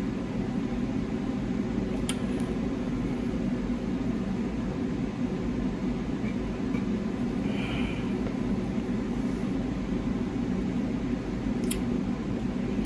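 A fan running with a steady low hum, switched on because food is cooking on the stove. A couple of faint clicks stand out over it, about two seconds in and near the end.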